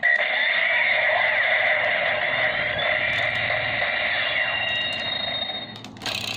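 Electronic sound effects and music playing from the DX Gaburevolver toy's small built-in speaker, thin and tinny, running continuously and dipping briefly near the end.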